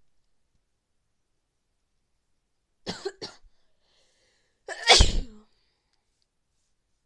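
A person with a cold sneezing: two short sharp sounds close together about three seconds in, then one loud sneeze about two seconds later.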